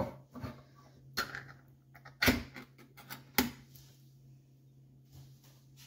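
Pull-tab lid of a can of condensed soup being peeled off and handled: a few sharp metallic clicks and taps, the last about three and a half seconds in.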